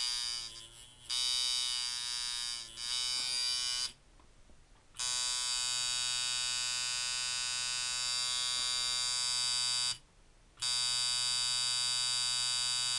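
Spalding coil tattoo machine running unloaded at about 124 cycles a second, with a medium, punchy stroke: a steady electric buzz. It dips and wavers in pitch twice in the first few seconds, stops for about a second near four seconds in, and stops again briefly near ten seconds.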